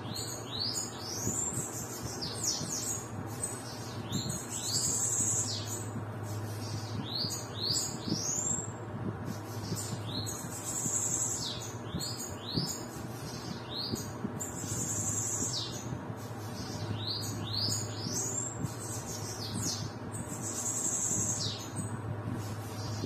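Caged bananaquits singing in the high, rapid 'baderna' style: repeated phrases of quick upward-sweeping notes, each ending in a thin buzzy trill, coming every few seconds. A steady low hum runs underneath.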